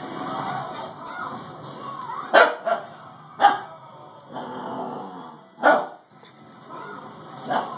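Husky puppy barking in short, sharp yaps, about five times, with low growling in between, aimed at a doorstop.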